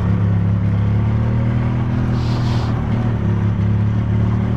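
Engine of a farm vehicle running at a steady, constant speed, a low, even drone, with a brief hiss about halfway through.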